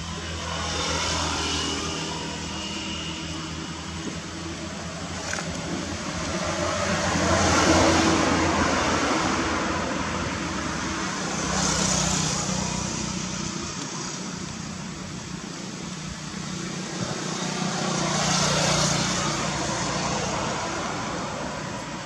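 Passing motor traffic: a steady engine hum with vehicles going by in four slow swells that rise and fade, the loudest about eight seconds in.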